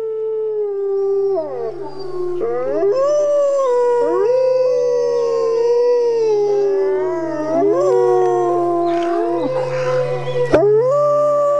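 Several wolves howling together, long overlapping howls gliding up and down in pitch, over a low steady hum that breaks off a few times. A sharp click near the end.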